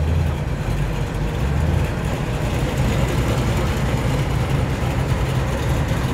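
Ford Falcon XW GS's engine idling with a steady low rumble as the car rolls slowly past.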